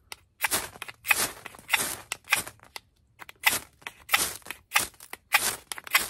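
The sharp 90-degree spine of a Terra Knives Forester knife, in Magnacut steel, is scraped down a ferrocerium rod again and again, striking sparks. It makes about a dozen quick scrapes, roughly two a second, with a short pause about halfway.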